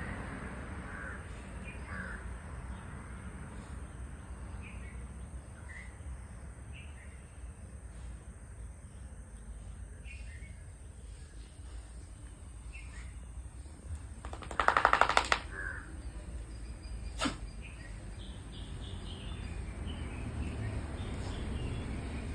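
Crow cawing once, a loud harsh rasping call of about a second, about two-thirds of the way through, over small birds chirping now and then and a steady low hum of distant traffic.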